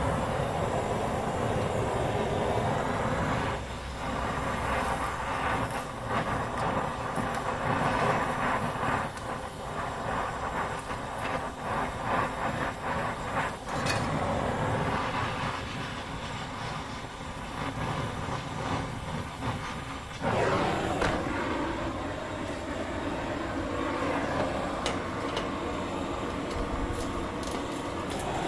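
Gas torch flame running with a steady rushing noise and scattered crackles, heating the rusted nuts on the exhaust flange to free seized spring bolts. About 20 seconds in the sound changes suddenly and gets louder.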